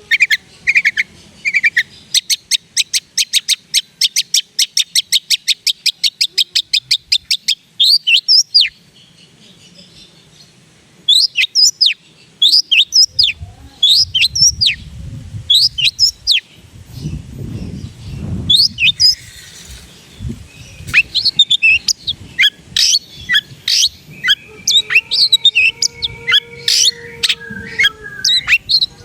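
Long-tailed shrike (cendet) singing: a fast run of dry ticks, several a second, for about five seconds, then a long series of sharp, quickly falling whistled notes. A low rumble comes in under the song around the middle.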